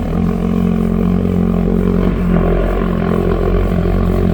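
Sewer jetter's engine and high-pressure water pump running steadily, a loud, even drone.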